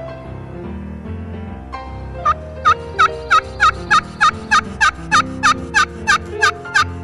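Turkey yelps in a long, evenly spaced series of about three a second, starting about two seconds in, over background music.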